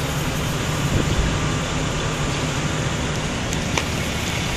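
Steady outdoor background noise with a low hum, and a few faint clicks near the end.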